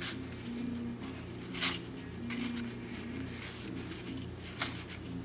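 1990 Donruss cardboard baseball cards being thumbed through and slid off a stack by hand: a few short papery swishes, the loudest about one and a half seconds in, another near the end, over a steady low hum.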